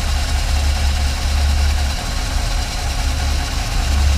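A 1956 Dodge 315 V8 idling steadily and whisper quiet.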